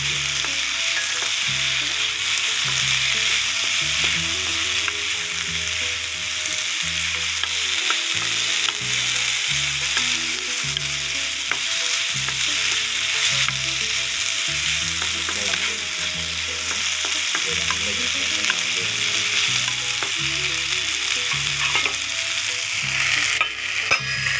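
Cauliflower florets, onion and tomato sizzling steadily in hot oil in a nonstick pan while a spatula stirs them. Near the end a glass lid goes onto the pan and the sizzling turns duller.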